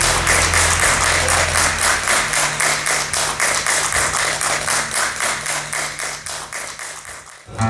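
Audience applauding, the claps falling into a quick, even rhythm, with a low note from the band dying away beneath it. The applause fades out near the end.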